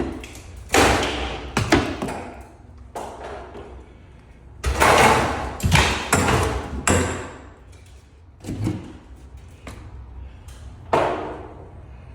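Drywall being broken out and torn down: a series of irregular thumps, cracks and crashes as chunks break and fall, the heaviest cluster about halfway through.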